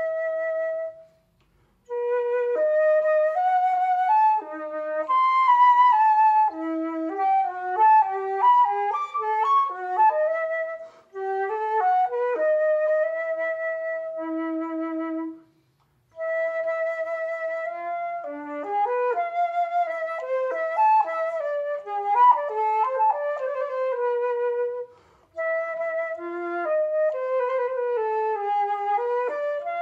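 Concert flute played solo: a melody in phrases of moving and long held notes, broken by several short gaps between phrases.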